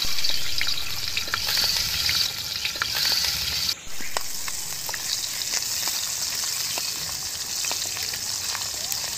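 Whole singhi (stinging catfish) frying in hot oil in a metal wok, sizzling steadily with scattered pops and the scrape of a wooden spatula moving the fish. The sound breaks off for a moment about four seconds in.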